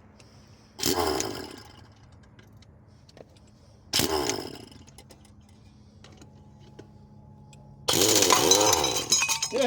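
Electric starter cranking a small 10 horsepower diesel engine in two short bursts, about a second in and again about four seconds in, then a longer crank from about eight seconds in.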